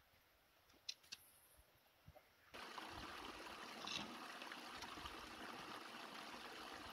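Small mountain stream trickling and splashing over rocks in a little cascade, a steady rush that cuts in suddenly about two and a half seconds in after near silence.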